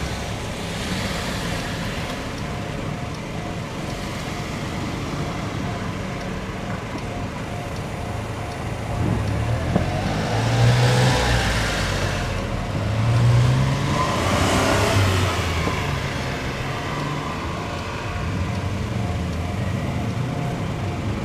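Japanese railway level-crossing alarm ringing steadily in a repeating pattern, under road traffic. Two vehicles pass close by, about ten and fourteen seconds in, and are louder than the alarm.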